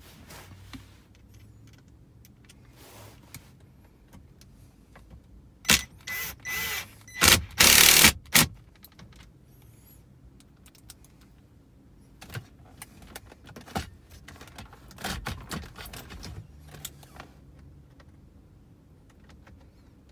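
Cordless drill-driver running in a few short bursts, driving in the side screws of the dashboard audio unit, loudest about six to eight seconds in. Scattered light clicks and knocks follow.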